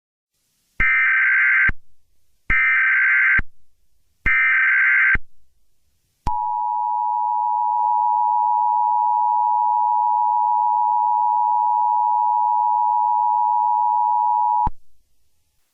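Emergency Alert System tones. Three short buzzing bursts of SAME header data, each about a second long and separated by short silences, are followed by the two-tone attention signal. The attention signal is held steady for about eight seconds and then cuts off. Together these tones mark the start of an emergency alert broadcast.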